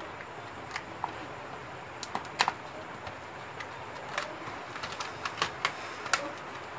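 Plastic packaging and pens of a brush pen set being handled, giving scattered sharp clicks and taps over a steady hiss, the loudest about two and a half seconds in and several close together near the end.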